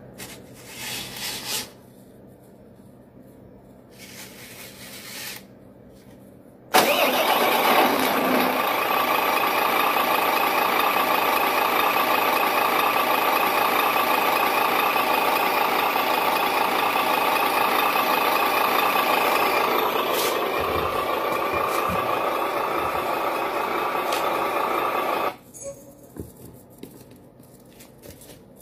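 Simulated truck engine sound from an RC truck's electronic sound unit. It switches on abruptly about seven seconds in, runs steadily, and cuts off suddenly near the end. Two short bursts of noise come before it.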